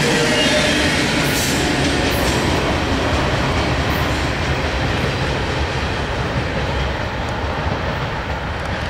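Freight train cars rolling along the rails with a steady rumble and rattle of wheels on track, easing off gradually as the train moves away.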